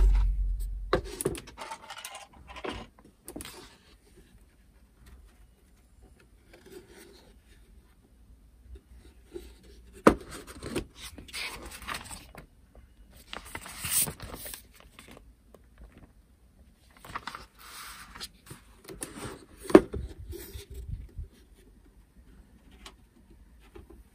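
Intermittent handling noises of small hard objects: light clicks, taps and scrapes, with a sharp click about ten seconds in and another near twenty seconds.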